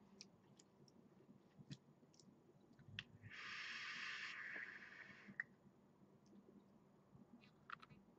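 A draw on an e-cigarette: a quiet, airy hiss lasting about two seconds, starting about three seconds in and ending with a click, with a few faint small clicks around it.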